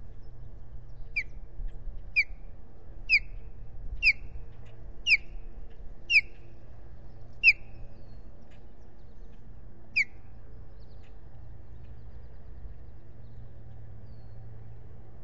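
Osprey calling: a series of short, sharp, high whistled calls that slide downward, about one a second for seven calls, then one more after a pause.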